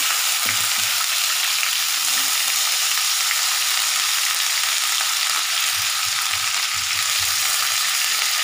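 Masala-stuffed brinjals sizzling steadily in hot oil in a non-stick kadhai, with a spatula pushing and turning them a few times.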